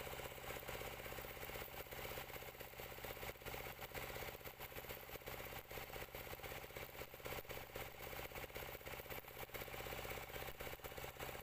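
Stick-welding arc crackling steadily on the steel of an excavator bucket as a tooth adapter is welded on, over a steady engine hum.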